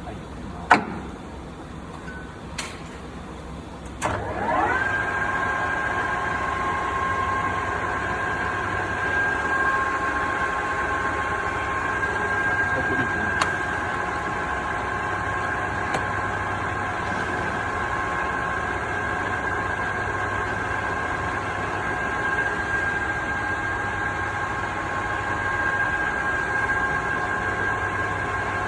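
Mori Seiki MS-850-4 engine lathe test-running: a few sharp clicks of controls being worked, then about four seconds in the spindle and headstock gears spin up with a quickly rising whine and settle into a steady gear whine.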